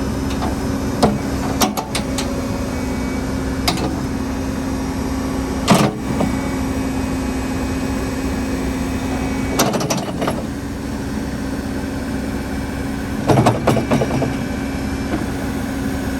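Case 580 Super N backhoe's diesel engine running at a steady speed, with occasional sharp metallic knocks and clanks, loudest about six seconds in and in a cluster near the end.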